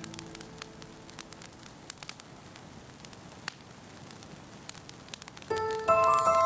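Faint steady hiss with scattered soft crackles and clicks. About five and a half seconds in, gentle music with bell-like chime tones comes in and becomes the loudest sound.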